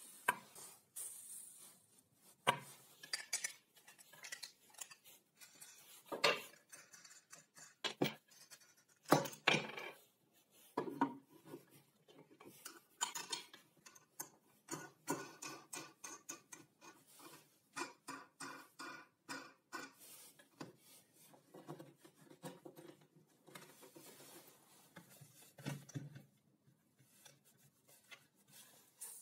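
Small metal hardware being handled: bolts, nuts and washers clinking against each other and against a wooden bench, in irregular clicks and knocks. Now and then a louder knock as wooden parts of the jig are set and fitted together.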